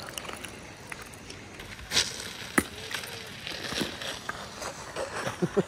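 A sheet of clear ice cracking and snapping as a gloved hand pries it off a chairlift's icy metal pole: a couple of sharp cracks about two seconds in and a run of smaller clicks and knocks near the end, over a steady hiss.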